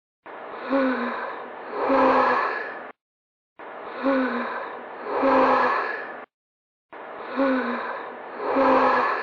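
A breathy, sigh-like vocal sound repeating as an identical short clip about every three and a third seconds. Each repeat has two swells and cuts off abruptly into dead silence.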